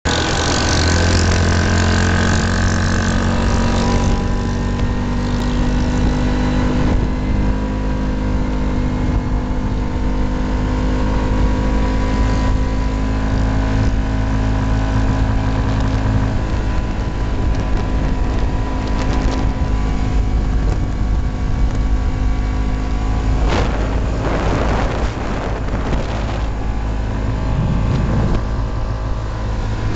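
Yamaha Rhino side-by-side's engine running steadily under way on a gravel road, with tyre and wind noise and a few knocks from bumps in the last few seconds.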